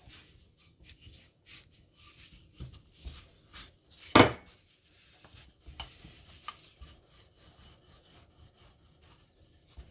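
Thin wooden rolling pin rolling out flatbread dough on a countertop: soft rubbing and light knocks, with one louder knock about four seconds in.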